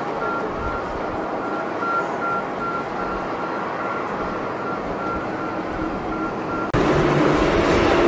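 Boeing 737 jet engines on a takeoff roll, a steady rushing roar heard from some distance with a faint, regularly pulsing high tone. Near the end it cuts abruptly to a louder, closer jet-engine sound with a steady low hum.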